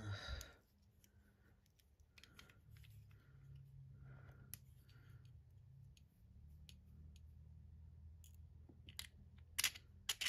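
Faint handling of small fan light-kit parts: scattered light clicks and scrapes of metal hardware and wiring, with a short rustle at the start and a few sharper clicks near the end.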